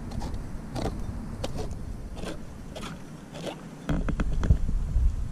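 Hand-crank can opener cutting around a tin can, clicking with each turn of the handle, about two clicks a second. About four seconds in, a louder low rumble with a few clicks as the cut lid is lifted off.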